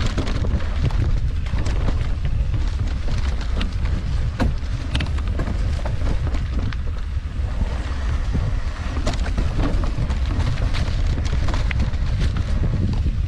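Wind buffeting the microphone of a camera carried on a mountain bike while riding, a steady low rumble, with scattered clicks and rattles from the bike and tyres on the dirt trail.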